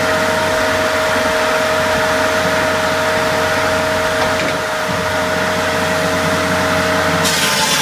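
Shinyoung 1620SS firewood processor running: a loud, steady machine hum with a constant whine, and a short burst of rushing noise near the end.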